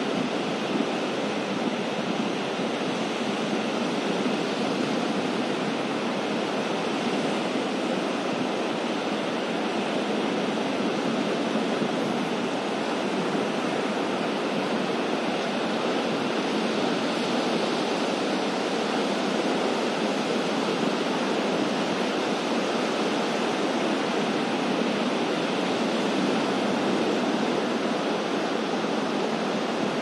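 Ocean surf breaking, heard as a steady, even rush of noise with no single wave standing out.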